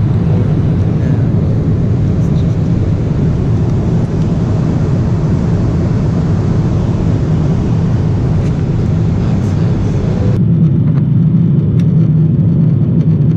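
Airliner cabin noise in flight: a steady, loud low drone of engines and airflow. About ten seconds in the higher hiss drops away abruptly, leaving the low drone.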